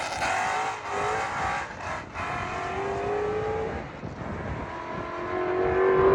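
Ford Boss 302 Mustang's V8 running through aftermarket side pipes, revving and accelerating. Its pitch climbs in several pulls, and it is loudest near the end.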